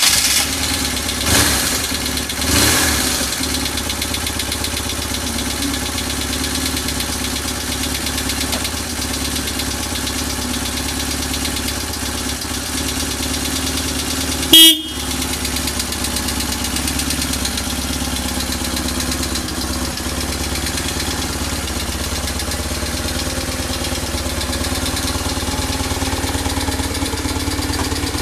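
BMW R1100RS's boxer twin engine just after starting, blipped twice in the first few seconds and then idling steadily through its exhaust. A brief loud burst cuts in about halfway through.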